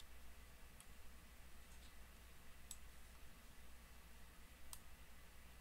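Near silence over a low steady hum, broken by a few isolated faint clicks of a computer mouse.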